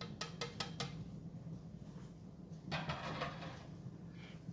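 A quick run of about six light clicks in the first second, then a brief rustle about three seconds in: handling noise as the camera is being adjusted. A steady low hum runs underneath.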